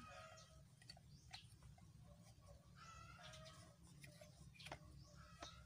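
Near silence, with faint calls of a domestic animal three times: at the start, about three seconds in, and near the end, and a few faint clicks between them.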